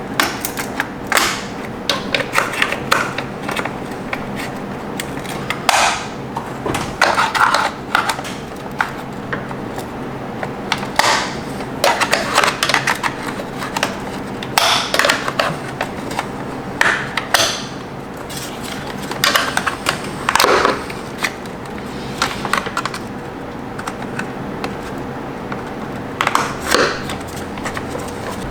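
Irregular plastic clicks, scrapes and snaps as the plastic cover enclosing a BMW E36's coil-pack wiring harness is pried open, over a steady faint hum.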